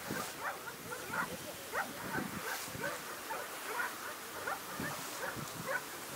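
A pointing dog whining and yipping in quick, high, uneven cries.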